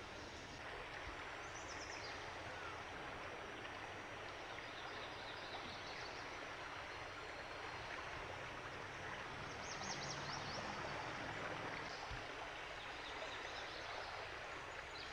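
Floodwater flowing steadily in a channel, an even rushing sound, with a few short high bird chirps, one set about ten seconds in.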